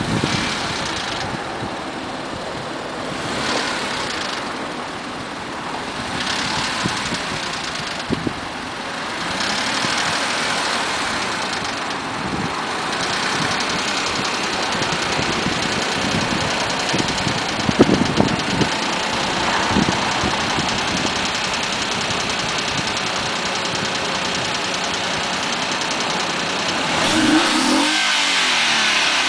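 Mazda 6 engine running, its speed rising and falling several times, with a rattling knock that comes in between 1000 and 1500 rpm. The owner first noticed the rattle after removing clogged catalytic converters and fitting new headers.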